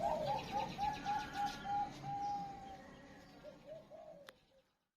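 Zebra dove (perkutut) cooing: a quick run of short, rounded coo notes at about four a second, one drawn-out note in the middle, then a few more notes, with faint chirping of smaller birds behind. The sound cuts off abruptly into silence just before the end.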